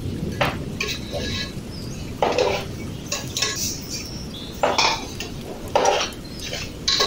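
Steel spatula scraping and clinking against an aluminium pot while stirring and roasting semolina with sugar, in irregular strokes roughly once a second. This is the stage where the sugar is roasted in until it melts into the rava.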